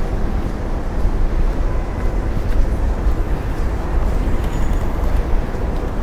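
Steady city traffic noise: a continuous low rumble of cars and buses on a busy road.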